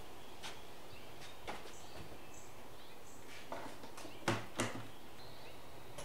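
A few light knocks of gear being handled, then two louder thuds close together about four seconds in as a backpack leaf blower is set down on concrete. Faint bird chirps over a steady outdoor hiss.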